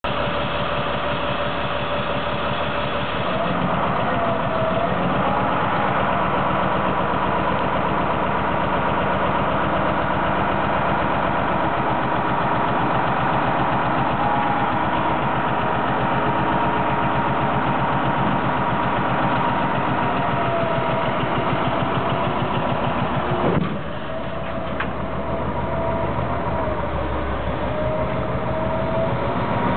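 Sterling L8500 dump truck's diesel engine running steadily while its hydraulic hoist raises the dump body, with a wavering whine alongside. A single clunk comes a little over twenty seconds in, and the engine sound dips briefly after it.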